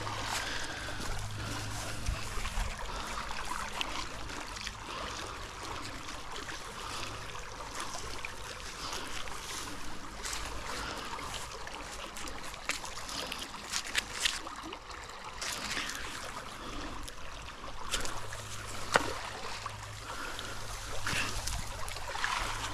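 River water flowing steadily, with scattered rustles and clicks as a magnet-fishing rope is hauled in hand over hand through the bankside grass.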